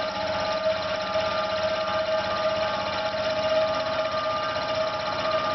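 Failing air compressor running with a steady high whine and vibration. The motor is labouring and slowing down, overheated and unable to build pressure.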